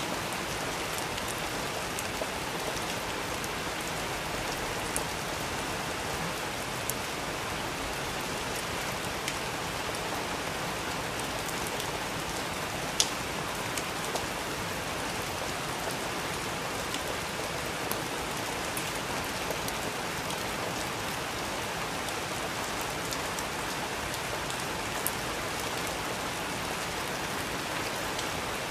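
Steady rain falling, an even hiss, with scattered sharp drips ticking close by; one louder tick about halfway through.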